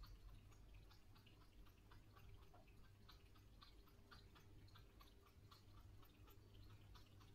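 Ginger cat lapping water from a glass bowl: faint, quick, regular laps at about four a second.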